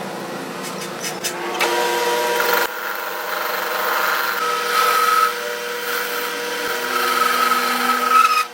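Power tool running with a steady whine; its tone shifts a couple of times, and it stops near the end.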